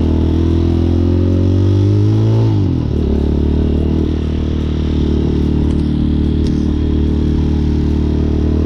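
Hawk 250 single-cylinder motorcycle engine pulling under load, its pitch rising for about two and a half seconds, then dropping sharply at a gear change, and running steady afterwards.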